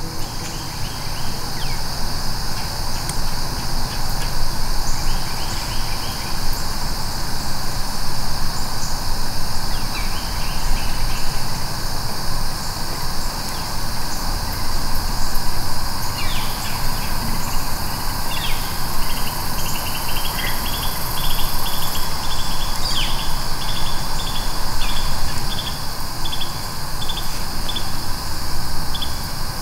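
Steady insect chorus, a constant high drone, over a low rumble. About halfway through, a run of short repeated chirps begins, about two a second.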